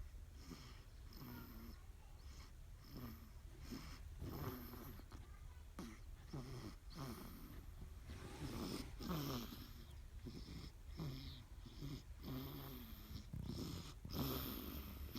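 Week-old newborn girl snoring in her sleep: short snores about once a second, each falling in pitch.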